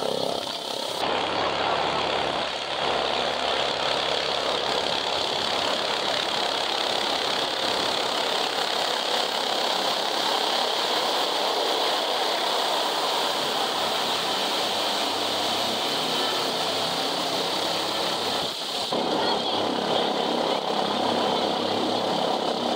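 Steady rush of rotor and turbine noise from a Sécurité Civile EC145 rescue helicopter hovering close overhead. The sound changes abruptly about a second in and again near the end.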